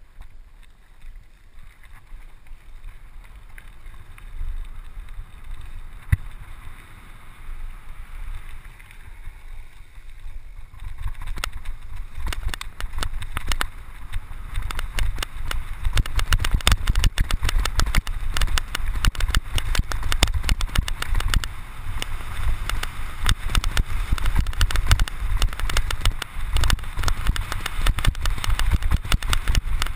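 Scott Scale 29er hardtail mountain bike riding downhill: fairly quiet rolling at first, then about ten seconds in a louder, dense rattle and clatter as the bike runs over rough dirt singletrack. Low wind rumble on the camera microphone runs under it.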